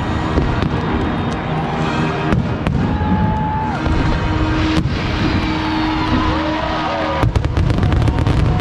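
Aerial fireworks display: shells bursting in a continuous rumble of booms and crackle, with several sharp bangs standing out, the loudest about seven seconds in.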